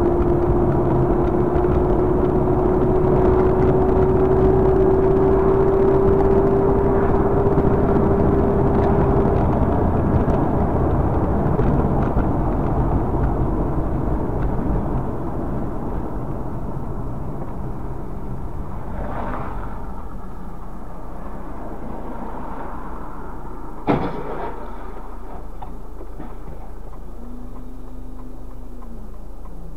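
Car cabin noise while driving: steady engine and tyre noise, with a whine that rises slightly over the first nine seconds and an overall level that drops about halfway through. A single sharp knock comes about 24 seconds in, and a short tone falls in pitch near the end.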